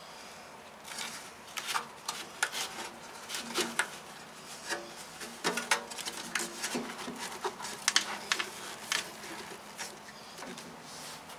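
Battery hold-down strap being threaded, pulled tight and buckled over a battery in an aluminium diamond-plate box: irregular clicks, scrapes and rubbing from handling the strap and buckle.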